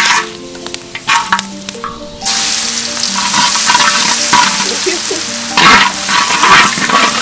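Garlic frying in hot oil in a large wok, with a loud sizzle that starts suddenly about two seconds in, and a spatula stirring and scraping through it. Before the sizzle, a few clicks of the utensil on the wok.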